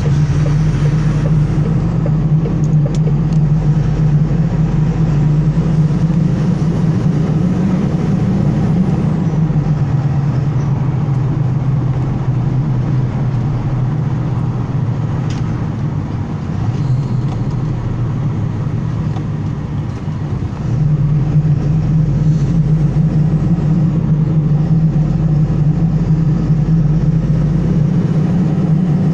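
Delivery truck's engine and road noise heard from inside the cab while driving in town traffic. The engine note eases off for a few seconds past the middle, then picks up sharply as it pulls again.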